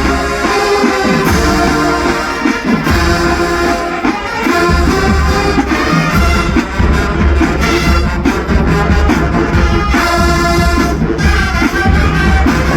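A show-style marching band playing full out: a brass section over a heavy low bass line, with drums.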